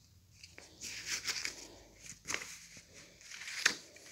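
Glossy paper leaflet being unfolded and handled, rustling and crinkling in a series of short bursts, the sharpest about three and a half seconds in.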